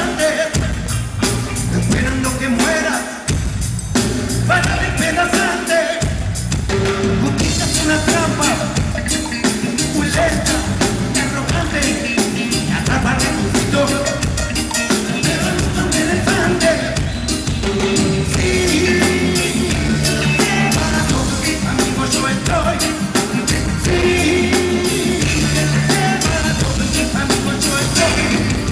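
Live reggae band playing on stage through a PA: drum kit, bass, guitar and keyboards with a sung vocal, at a steady beat.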